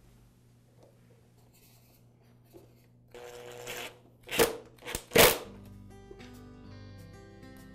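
Cordless power screwdriver running for about a second as it drives a screw into the espresso maker's tap housing, followed by three loud, sharp clacks close together. Background music comes up near the end.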